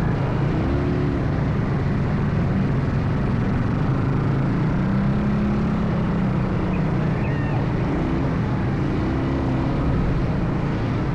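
ATV engine running steadily while riding, with a continuous low drone and rough road noise.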